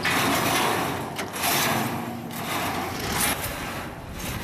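Welded steel-bar cage frame scraping and grating as it is pushed and dragged over gravelly ground, in several long scrapes with short pauses between them.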